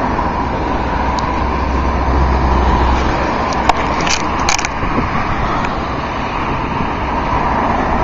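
Road traffic on a wet, snow-covered road: steady tyre and engine noise from passing cars, with a low rumble strongest in the first half and a few sharp clicks about halfway through.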